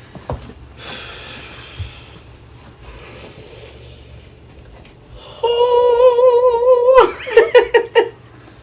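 A person's voice holding one high, slightly wavering note for about a second and a half, then breaking into about half a dozen quick bursts of laughter.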